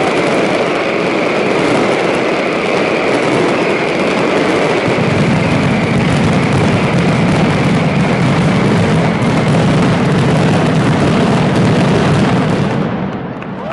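Mascletà firecracker barrage: a dense, unbroken roll of masclet explosions that grows deeper about five seconds in, then dies away near the end, the closing stretch of the display.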